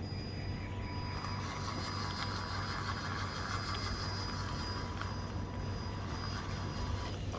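Handmade all-metal 6x4 RC truck driving in second gear: its drive motor and gearbox give a steady high whine that starts about half a second in and stops near the end, with a rougher rush of noise through the middle few seconds.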